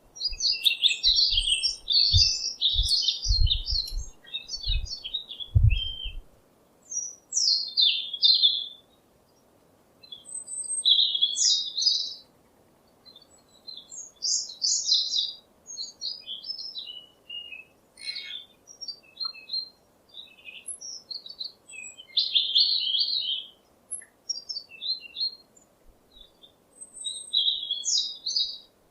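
Small birds chirping and singing in short bursts of high notes, with pauses between phrases. Low thumps sound through the first six seconds or so.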